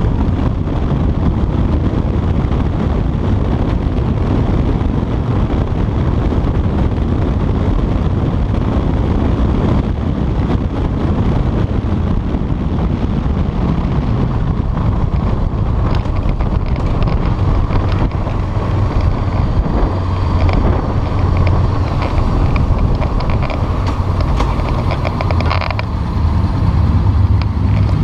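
Honda CBR sport motorcycle being ridden, with heavy wind rush on a chest-mounted camera's microphone over the running engine. The engine sound grows a little louder near the end.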